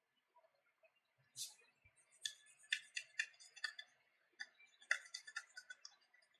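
Light, sharp clicks and taps in two quick runs, preceded by a brief rustle, from fingers tapping on a tablet's touchscreen and handling it.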